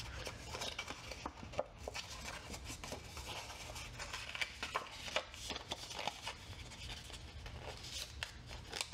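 Cardstock being folded by hand along its score lines and creased: faint, scattered crackles and rustles of the card.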